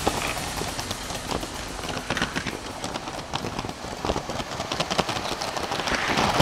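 Lego train rolling along its track, its wheels giving a string of irregular clicks over a light hiss.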